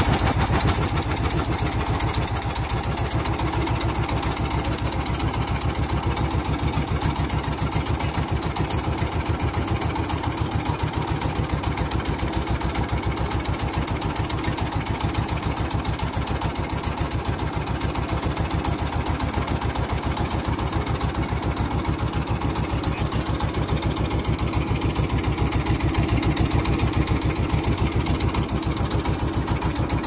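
A small wooden fishing boat's inboard engine running steadily, with a fast, even beat of firing strokes.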